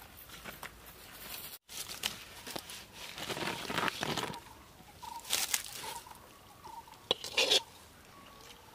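Banana leaf rustling and crinkling as cooked banana flower and shrimp curry is tipped and spread onto it, in three short bursts.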